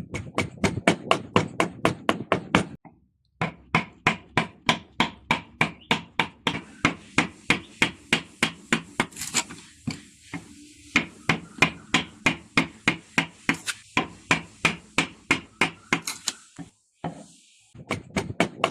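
Mallet blows on a wood-carving chisel, struck in a rapid, even rhythm of about three to four blows a second. The blows break off briefly twice, about three seconds in and near the end.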